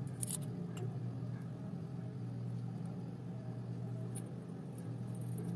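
Faint, sparse clicks of small metal parts being handled as a screw-on cutting disc is fitted onto a mini grinder's mandrel, over a steady low hum.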